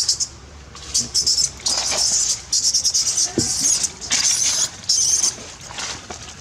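Baby macaque screaming: a run of loud, shrill, raspy cries in quick repeated bursts, starting about a second in and stopping about five seconds in.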